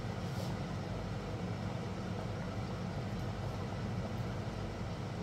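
A steady low hum, even throughout, with no distinct events.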